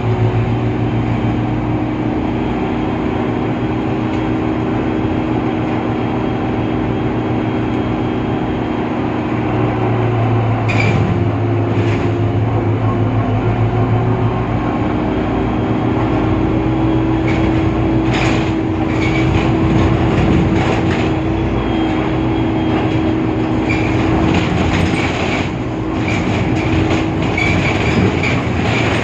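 Irisbus Citelis CNG city bus with its Cursor 8 gas engine running on the move: a steady drone with humming tones, joined from about a third of the way in by knocks and rattles that grow more frequent toward the end.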